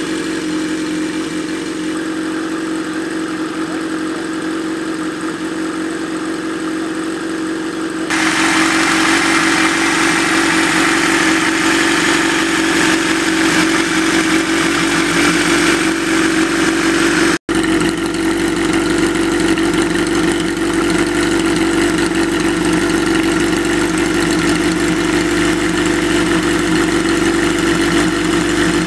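Kawasaki Z1's air-cooled inline-four idling steadily through a PAMS four-into-one collector exhaust. It grows louder and brighter about eight seconds in, and cuts out for an instant a little past halfway.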